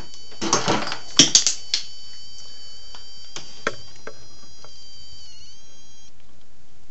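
Corded drill used as a screw gun, running with a thin, steady high whine as it drives a small screw through a plastic storage bin's mounting tab, the pitch dipping briefly near the end before it stops. A few clicks and knocks of tool handling come first, about a second in.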